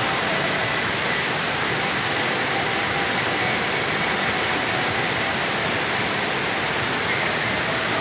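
Small waterfall pouring over a rock ledge into a pool: a steady rush of falling and splashing water.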